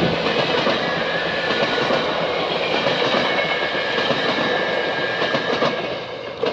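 GO Transit commuter train rolling past, its wheels clacking over the rail joints.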